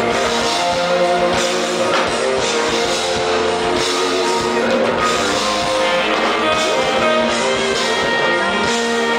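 Live smooth-jazz band playing steadily, with electric guitar, bass guitar, keyboards and drums.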